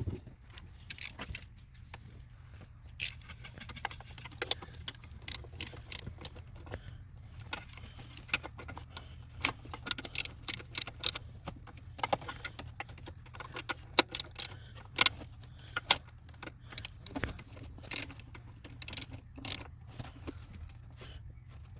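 Irregular light metallic clinks and clicks of hand tools and metal parts being handled, over a steady low hum.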